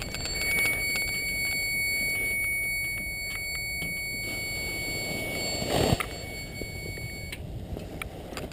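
A steady, high-pitched electronic tone, like an alarm beep held on, sounds for about seven seconds and then cuts off suddenly. Underneath is a low rumble, with a single thump near the six-second mark.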